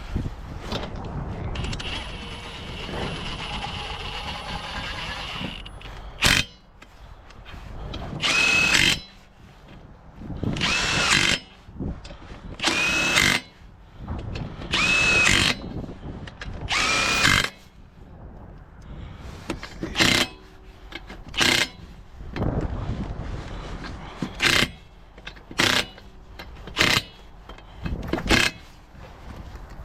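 Cordless impact wrench on wheel lug nuts: a run of about five one-second bursts, each with a whine that rises and falls, then eight or so short bursts as the nuts are tightened down on a full-size spare wheel.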